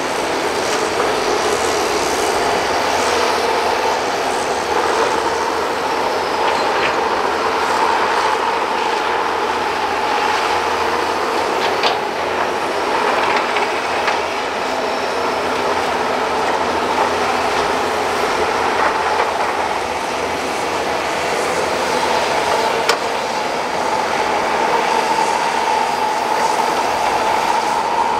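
Hydraulic excavators digging mud: steady diesel engine and hydraulic noise, with a few sharp metallic clanks scattered through it.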